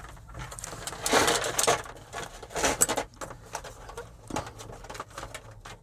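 Handling noise from the parts and tools of a disassembled LED TV being moved about: a run of light clicks and knocks, with rustling about a second in and again near three seconds.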